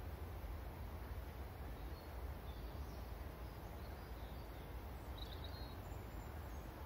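Outdoor ambience: a steady low rumble and hiss with faint bird chirps scattered through, and a short quick run of chirps about five seconds in.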